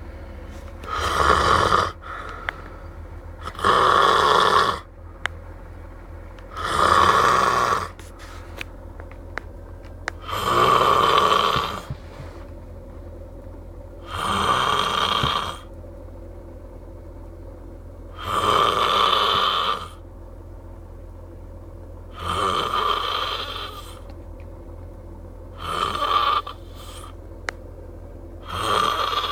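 A sleeping man snoring in a steady rhythm, one snore about every three and a half to four seconds, each lasting about a second and a half.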